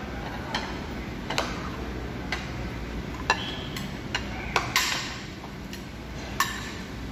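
Scattered sharp clicks and light clinks of dishes and cutlery being handled, about nine in a few seconds, over a steady low room hum.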